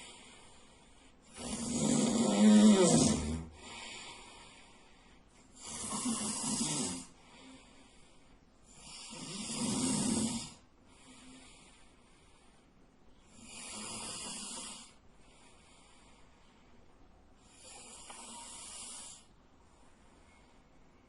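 A sleeping man snoring loudly, one snore about every four seconds with a softer breath between each. The snore about two seconds in is the loudest, and the snores grow fainter toward the end.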